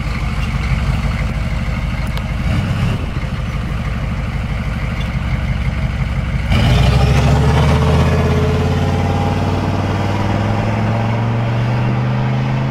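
Chevy 6.5L turbo diesel V8 with its exhaust opened up short of the rear, running with a deep rumble, then about six and a half seconds in it gets louder and pulls away, the engine note climbing steadily as the truck accelerates.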